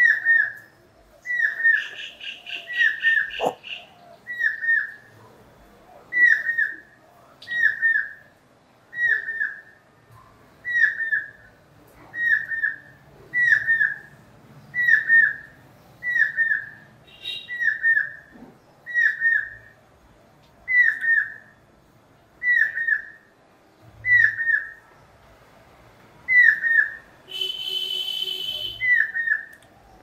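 Stork-billed kingfisher calling: a short, falling whistled note, often doubled, repeated steadily about once every second and a half. A brief rapid chatter from another bird comes a couple of seconds in, and a harsh buzzy call near the end.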